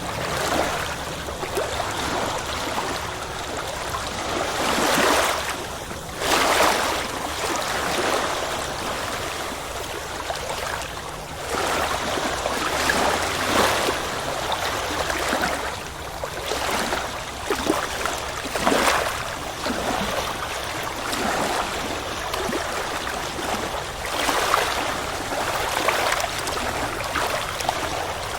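Ocean surf: a steady rush of waves, swelling and breaking at irregular intervals.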